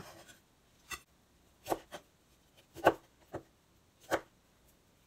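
Chef's knife cutting broccoli on a bamboo cutting board: separate knocks of the blade striking the wood, about five of them at uneven intervals.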